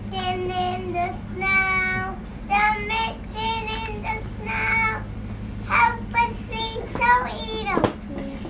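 Young children singing a simple song in phrases of held notes, over a steady low hum.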